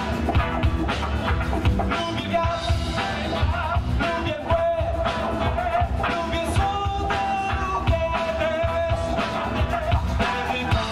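Blues-rock band playing live: drums, bass and electric guitars in a funk-blues groove with a steady beat and a sustained, bending lead line on top.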